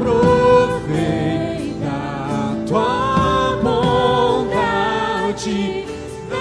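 Christian worship song: voices singing together in long held notes over a steady instrumental backing.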